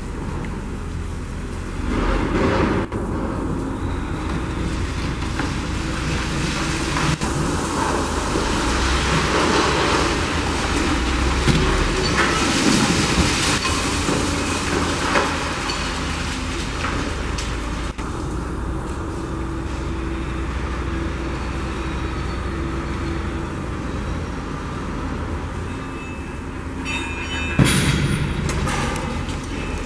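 A crawler crane's engine runs steadily during wrecking-ball demolition of a concrete building, with rubble crashing down at times. A sudden, loud crash with clanking metal comes near the end.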